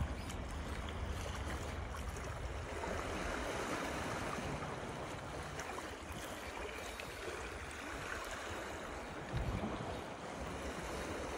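Wind rumbling on the microphone over the wash of small sea waves lapping against the breakwater rocks, with a brief low thump about nine seconds in.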